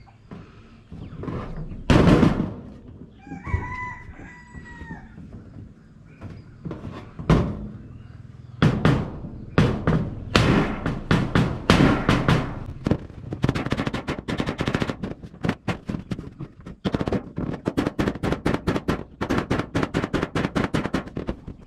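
After a single loud knock, a rooster crows once about three seconds in. From about eight seconds in comes a long run of rapid, repeated hammer blows, several a second, growing denser toward the end.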